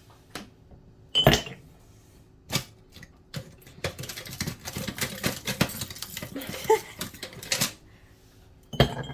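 Food and its packaging handled at a table: a few sharp knocks and clinks, with about four seconds of dense crinkling rustle in the middle.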